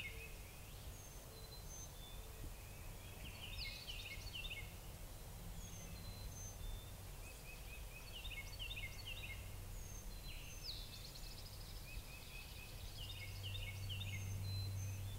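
Songbirds singing in spring woods. One bird repeats a short phrase of quick descending notes about every four to five seconds, with thin high single notes between the phrases, over a faint low rumble.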